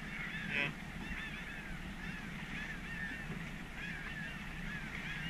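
A flock of birds calling: many short, arching chirps overlapping one another throughout, over a low steady hum.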